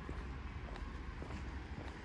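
Footsteps on pavement, light steps about twice a second, over a steady low rumble.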